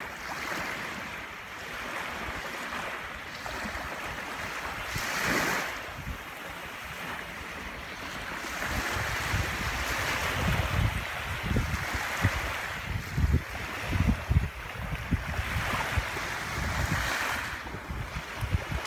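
Small waves washing up on a sandy beach, swelling and fading every few seconds, with wind buffeting the microphone from about halfway through.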